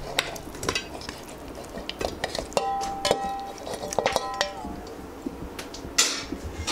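A steel bowl knocking and clinking against an aluminium pressure cooker as pieces of marinated chicken are scraped and dropped into it. Around the middle there are two short spells of metallic ringing, and near the end a louder clatter.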